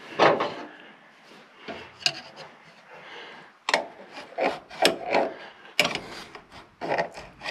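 Hands working the brake master cylinder lid and its rubber seal: irregular rubbing and scraping with a few sharp knocks.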